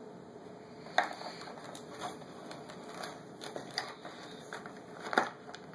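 Toy bulldozer and small hands scraping and knocking through crumbly dirt and rock chunks in a plastic tub: irregular clicks and taps, the sharpest about a second in and near the end.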